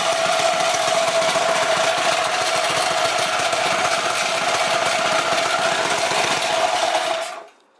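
Predator 212cc single-cylinder mini bike engine idling steadily, its Mikuni carburetor's air mixture screw being turned out to richen a lean, chugging idle. The engine sound cuts off about seven seconds in.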